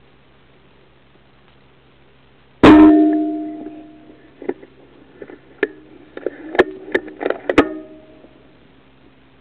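A single sharp shot about two and a half seconds in, with a ringing metallic tail that fades over a second or so. Then a run of about a dozen sharp metallic clicks and knocks over the next three seconds, some of them ringing briefly.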